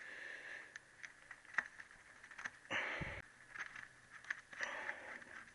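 Scattered light clicks and taps of tools and metal parts being handled on a motorcycle engine, with a brief scuffing noise about three seconds in.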